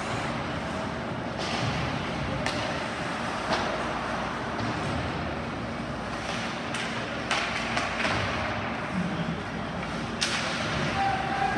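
Ice hockey game in an arena: a steady wash of rink noise with several sharp cracks and thuds of sticks, puck and boards.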